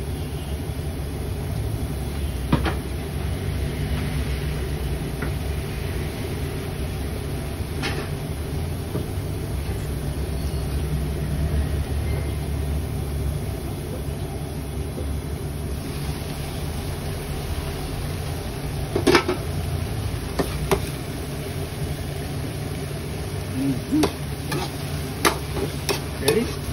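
Gas burner flame rumbling steadily under a lidded wok of simmering paksiw, with a few sharp metal clinks. Near the end the lid comes off and a metal ladle clinks against the wok several times.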